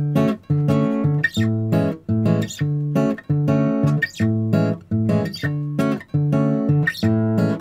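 Background music: strummed acoustic guitar chords in a steady, regular rhythm.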